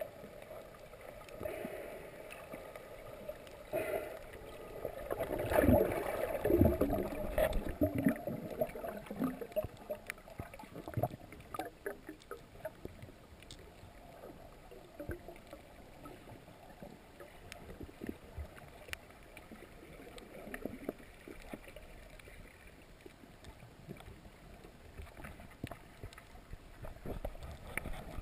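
Muffled underwater sound of water moving around an action camera's housing while snorkeling over a reef. There is a louder stretch of bumps and rushing water about five to eight seconds in, and scattered faint clicks.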